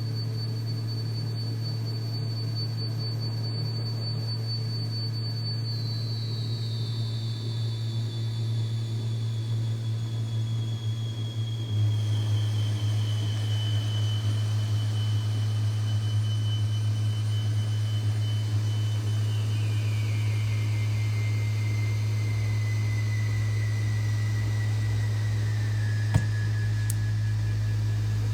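Modular synthesizer drone from a Make Noise Strega and XAOC Drezno: a steady low hum under a thin high tone that slides slowly downward in steps. The drone grows a little louder about halfway through, and a single click sounds near the end.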